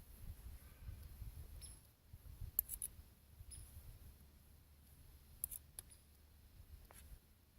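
Faint crackles and pops from a can stove cooking a pan of venison over a small twig fire: a few sharp isolated pops over a low rumble that fades after about two seconds.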